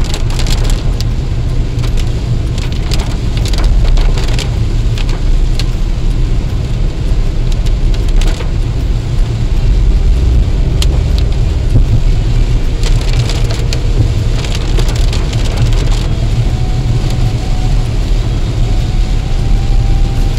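Inside a moving car in rain: a steady low rumble of tyres and engine on the wet road, with scattered sharp taps of raindrops hitting the windscreen and body.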